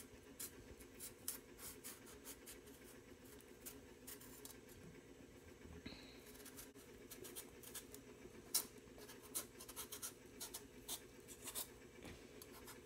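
Faint, irregular scraping strokes of a bottle gourd (upo) being peeled, the blade catching on the rind now and then.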